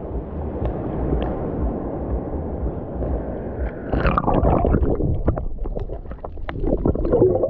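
Water sloshing against a handheld action camera held at the surface, muffled and low. About four seconds in the camera goes under, and the sound turns to underwater gurgling with many small crackles and pops.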